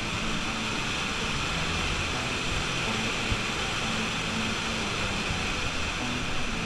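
Waterfall on Glen Creek plunging into a rock pool, heard from close behind the falling water: a steady, loud rushing roar.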